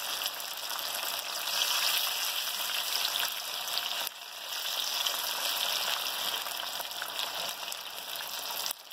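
Surmai (kingfish) steaks deep-frying in hot oil in a pan: a steady, dense sizzle, with a brief dip about four seconds in.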